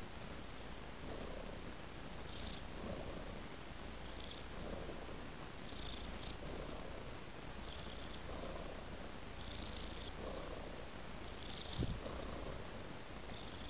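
Domestic tabby cat purring steadily, the purr swelling and fading about once a second with its breathing, while it eats raw meat, with short wet eating sounds every second or two. A single soft thump near the end.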